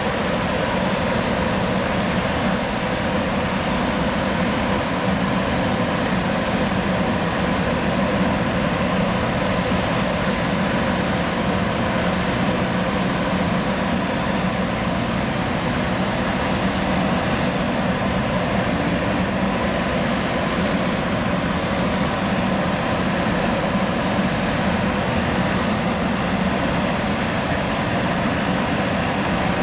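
Boeing 929 Jetfoil's gas turbines running steadily: a rushing jet-engine noise with a thin, high, steady whine over it.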